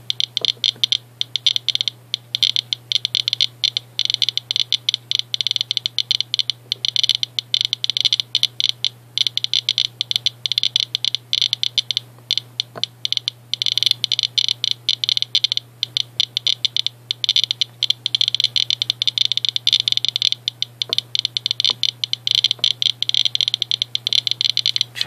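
S.E. International Inspector USB Geiger counter clicking rapidly and irregularly, at about a thousand counts per minute, as its pancake tube picks up radiation from uranium-doped Vaseline glass. A steady low hum runs underneath.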